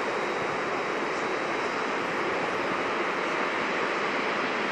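Steady rushing noise of a train approaching from the distance along the track, with a faint high whine over it.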